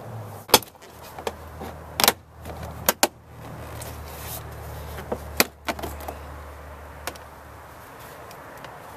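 Plastic door trim panel of a 2010 Dodge Charger being pulled off the door: a string of sharp snaps and clicks as its retaining clips let go, with lighter plastic knocks between, mostly in the first six seconds.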